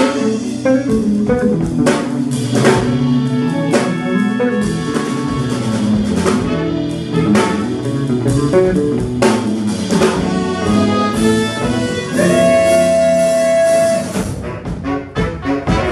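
Live soul-folk band playing an instrumental passage on drum kit and electric bass, the drums keeping a steady beat. Near the end one high note is held for about two seconds, followed by a quick run of drum hits.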